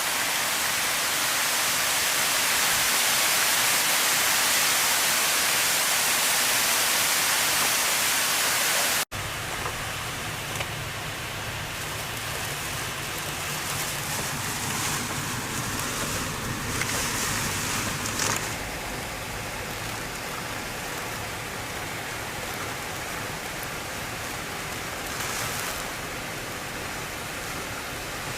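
Hurricane rain and wind: a loud steady hiss that cuts off abruptly about nine seconds in to a quieter rush of wind and rain with more low rumble and a few louder gusts.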